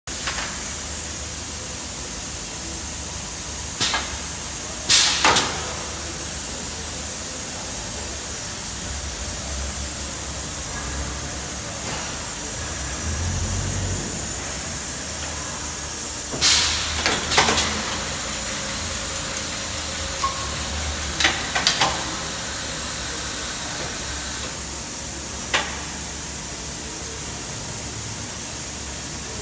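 Industrial thermoforming machine cycling: a steady hiss and hum, broken by short sharp bursts, several of them in pairs, as the platens and clamp frames move.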